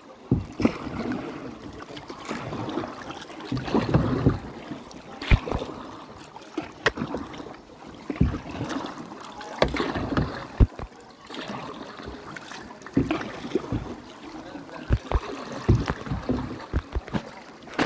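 Kayak paddling: a double-bladed paddle dipping and splashing in calm water in irregular strokes, with scattered sharp knocks.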